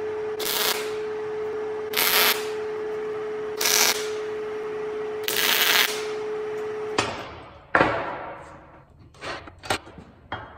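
MIG welder laying a weld bead on steel tubing: a steady crackling sizzle over a constant hum, with four brief louder surges, stopping about seven seconds in. After that come a few sharp metallic clanks of steel being handled on a steel bench.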